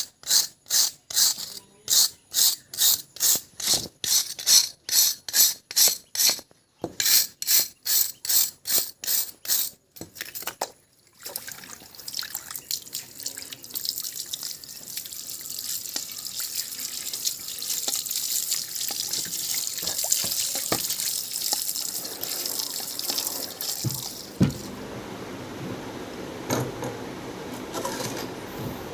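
Rhythmic scrubbing or rubbing strokes, about two a second, for roughly the first ten seconds. After a short pause comes the steady hiss of running water, which drops to a fainter, lower noise near the end.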